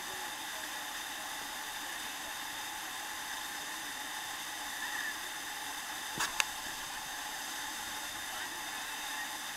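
Steady hiss of rushing water, with two sharp clicks about six seconds in.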